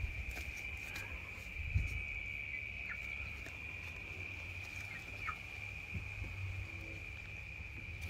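A steady high-pitched insect drone, with a few short falling chirps about three and five seconds in, over a low rumble and scattered light clicks.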